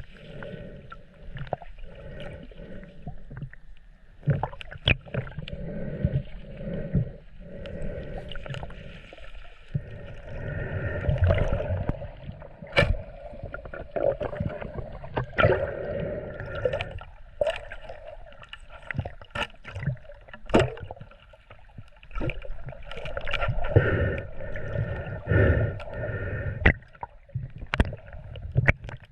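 Water sloshing and gurgling, with many scattered knocks and clicks.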